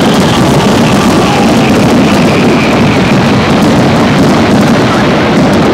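Fireworks display: a dense, unbroken barrage of bangs and crackling from shells bursting in quick succession, loud with no let-up.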